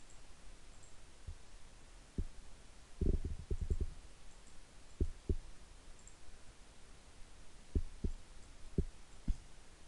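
Computer mouse clicks, dull and faint, over a low steady hum: a quick run of clicks about three seconds in, then scattered single and paired clicks.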